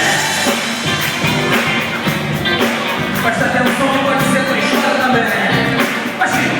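Live worship band playing with drums and a singer, recorded in a church hall.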